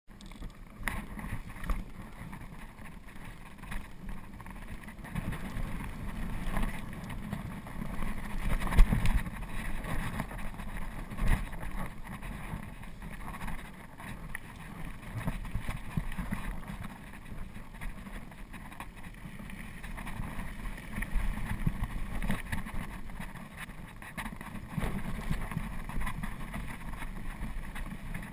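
Wind buffeting the microphone of a helmet-mounted action camera as a mountain bike rolls over dirt and rock, with the bike knocking and rattling over bumps; the sharpest knocks come about nine and eleven seconds in.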